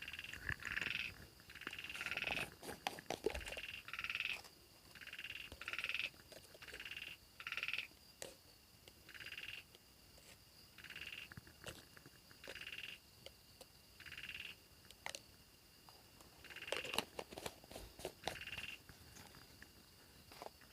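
Frogs calling at night after rain: short pulsed calls, each about half a second long, repeating every second or so, over a steady high whine. A few scattered clicks and crackles come in, most of them at about two to three seconds in and again near the end.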